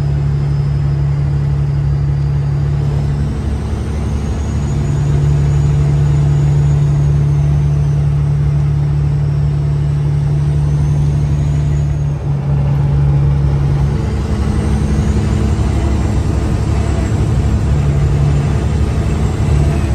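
Kenworth W900 semi truck's diesel engine running under way, heard from inside the cab as a steady low hum. Its note shifts about four seconds in and again around fourteen seconds, and a faint high whine rises and falls above it.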